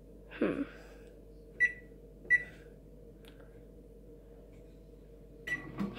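Whirlpool microwave keypad beeping as its buttons are pressed to set the cooking time: three short, high single beeps, two of them less than a second apart about a second and a half in, and one near the end.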